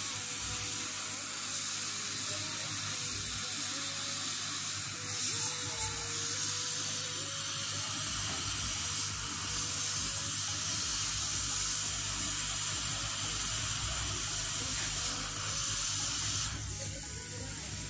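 Hot air rework station blowing a steady hiss while an 8-pin software (flash) chip is reflowed back onto a set-top box board; the airflow cuts off near the end.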